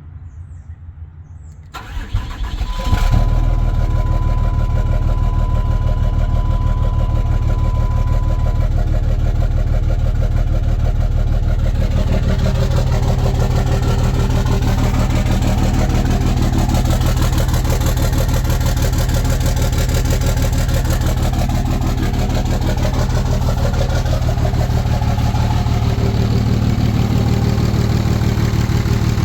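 Car engine cranking and catching about two seconds in, then idling roughly with a steady pulsing run. A steady high tone sounds for several seconds after it starts.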